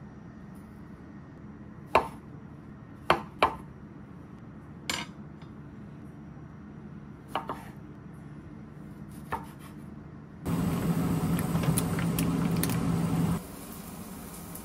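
Chef's knife coming down on a wooden cutting board while slicing mushrooms and cherry tomatoes: about seven single sharp knocks, spaced irregularly. Near the end a louder steady rushing noise with a low hum runs for about three seconds and cuts off suddenly.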